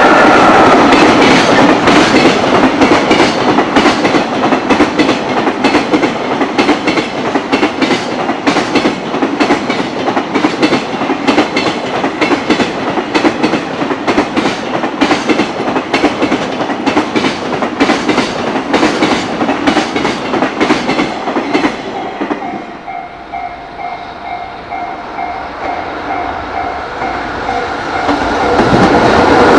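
Long container freight train passing at speed, its wheels clattering rapidly and loudly over the rail joints. About 22 seconds in the clatter stops. A quieter stretch follows with a repeating bell-like tone, and then the sound of another train swells up loudly near the end.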